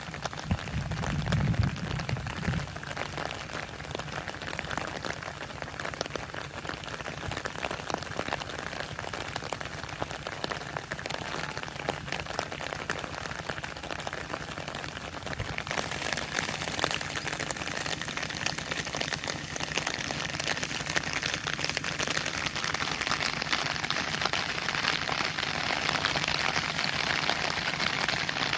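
Heavy rain falling, a dense patter of drops hitting surfaces; the rain grows louder and hissier about halfway through. A brief low rumble sounds in the first couple of seconds.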